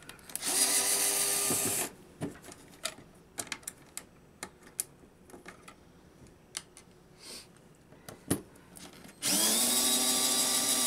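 Cordless drill-driver whirring in two runs of about one and a half seconds each, about half a second in and again near the end, backing out the screws that hold the wall pack's ballast parts. Between the runs, scattered light clicks and taps.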